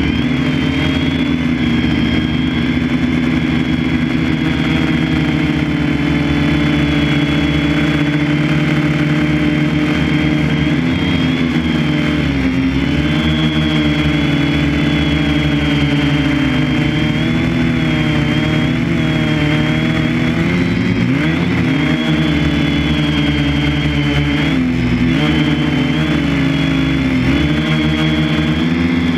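A machine motor running steadily and loudly, its pitch wavering slightly up and down.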